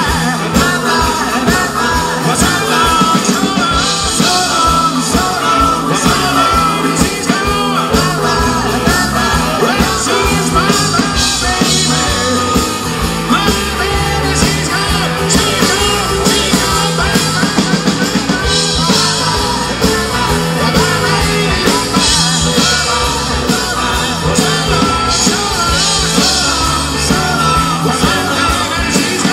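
Live rock-and-roll band playing: two electric guitars, drum kit and hand percussion, with singing.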